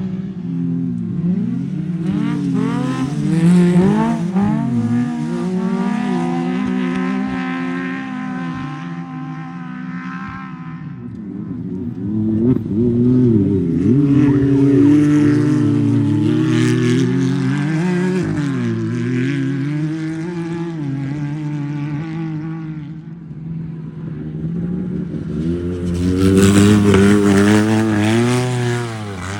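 Off-road race car engine revving, its pitch climbing and dropping again and again as the throttle opens and closes, with louder pulls a few seconds in, in the middle and near the end.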